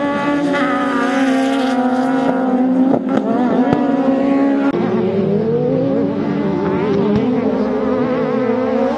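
Engines of two off-road race buggies revving hard, several engine notes overlapping, rising and falling with the throttle. About five seconds in the pitch drops and climbs again as they lift and shift.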